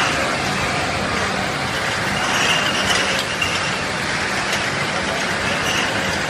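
Glass bottle washing machine running with a steady mechanical noise, a faint high tone coming and going and a few light ticks.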